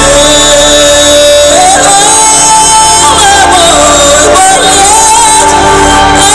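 Rock band playing live, recorded from the audience at near full-scale level. A wavering lead melody line rises and falls over steady accompaniment.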